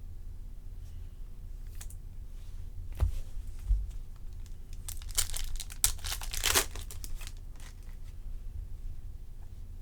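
A trading-card pack wrapper being crinkled and torn open, with the loudest rustling and tearing between about five and seven seconds in. A single sharp knock comes about three seconds in.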